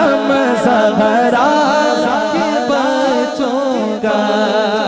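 Unaccompanied singing of an Urdu devotional verse (a manqabat): one voice drawing out long notes that waver and bend in pitch, with no instruments.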